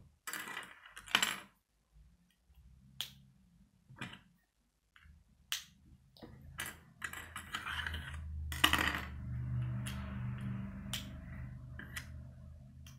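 Plastic Lego pieces clicking and clattering on a wooden table as they are picked up and snapped together, in scattered sharp clicks. From about six seconds in a low steady rumble of passing car traffic joins them, "lots of car sounds".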